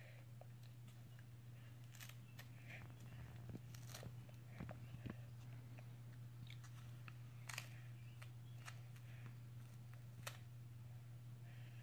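A 10-month-old baby biting and chewing a teething wafer that dissolves like a cereal puff: faint, scattered crunches and clicks, a few sharper ones around the middle, over a steady low hum.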